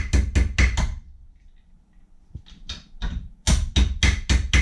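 Hammer striking a bent steel radiator wheel bracket laid on a metal block in a bench vise, knocking it flat: a quick run of about five metal-on-metal blows, a pause with a few light taps, then another quick run of about six blows near the end.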